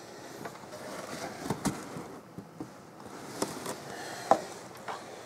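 A few short, light clicks and knocks over a low background hiss, the sharpest about four seconds in: handling noise from moving among engine parts and boxes.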